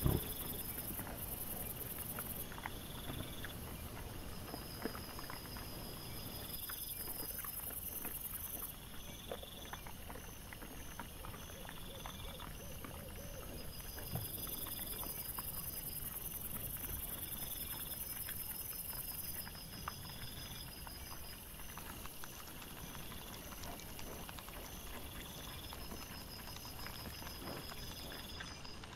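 Wild boar and their piglets foraging, sped up: a dense patter of faint clicks and crunches from rooting, chewing and hooves on the ground, with an occasional louder knock. Over it, a hiss and runs of repeated high-pitched pulsing tones.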